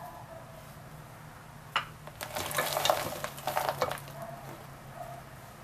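Broken pieces of white chocolate tipped and scraped from a container into a saucepan of milk and cornstarch: a knock just before two seconds in, then about two seconds of clattering and scraping as the chunks tumble in.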